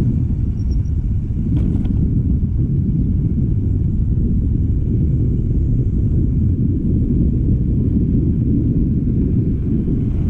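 Steady low rumble of a scooter being ridden along, the road and wind noise of the ride, with a faint click about one and a half seconds in.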